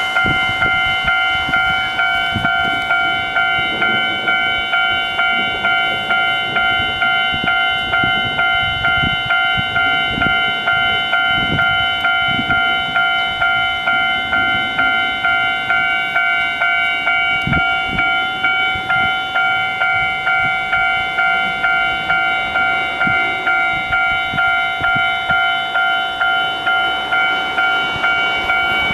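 Japanese railway level crossing's electronic warning bell ringing steadily at about two strokes a second, each stroke a chord of several high tones.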